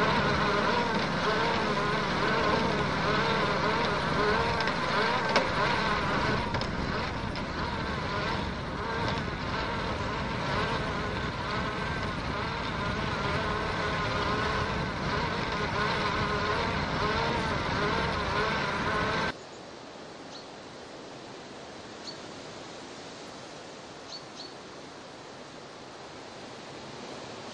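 Natural-gas test-drilling rig running: a loud, steady mechanical din with several wavering whining tones. It stops abruptly near the end, leaving a faint steady outdoor hiss.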